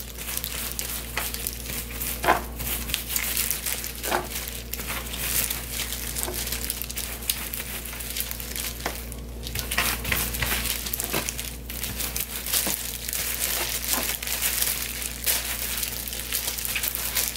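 Disposable plastic gloves and a plastic sheet crinkling as gloved hands rub red-pepper kimchi seasoning into salted napa cabbage leaves: a constant crackly rustle with many small clicks.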